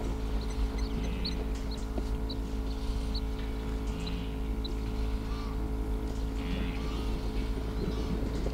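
A steady engine hum, like a vehicle idling, with short high bird chirps through the first half.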